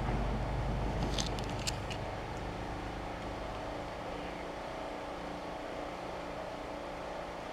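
A vehicle engine running steadily, with a few light clicks between one and two seconds in.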